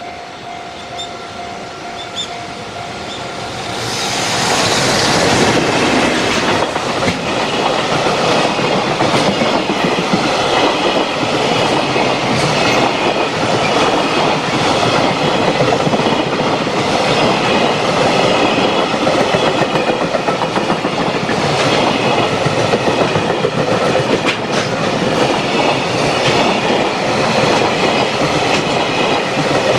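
A freight train running past a level crossing: the locomotive arrives with a loud rush about four seconds in, then the long string of wagons goes by, their wheels clattering steadily over the rail joints.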